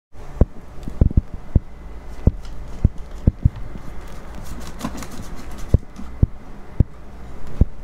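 About a dozen dull, uneven thumps and knocks over a low steady hum.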